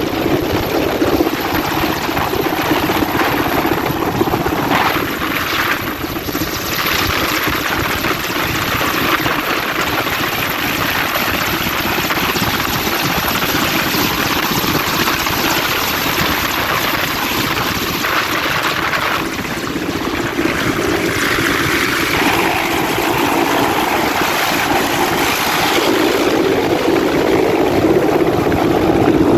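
Helicopter's rotor and engine running steadily and loudly.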